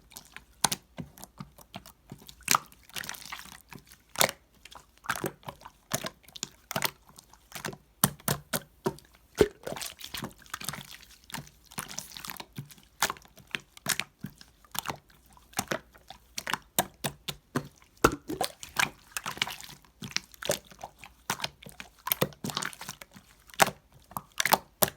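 Hands squeezing and poking a crackly 'chisel-feel' slime, giving a stream of irregular sharp clicks and crackles with some wet squishing.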